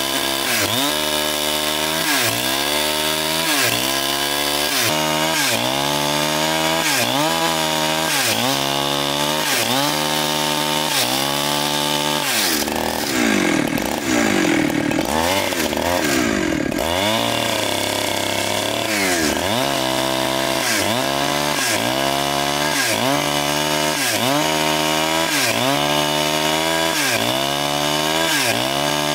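Chainsaw cutting into a very large log, the engine speed dipping under load and recovering about once a second as the saw is worked through the cut. Around the middle the rhythm breaks for a few seconds, then picks up again.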